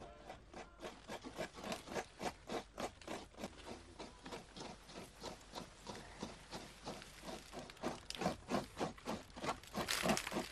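A rapid, uneven run of short taps, about four or five a second, growing louder near the end.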